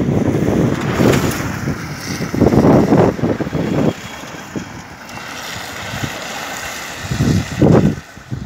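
Wind buffeting the microphone in gusts, with the hiss of a car's tyres on the wet road as it passes close by.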